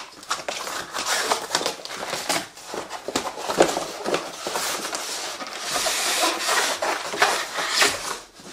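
Cardboard box being pulled open and handled, with rustling, scraping and knocks as a long styrofoam-packed exhaust is slid out of it onto a wooden table.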